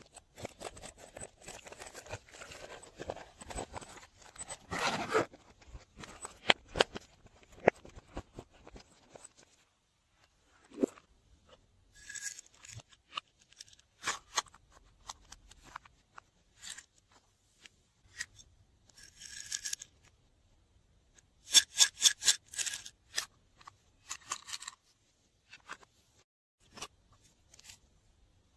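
Slime being worked by hand: sticky rubbing and crackling for the first few seconds, then scattered sharp clicks and pops, with a quick run of loud clicks about three quarters of the way through.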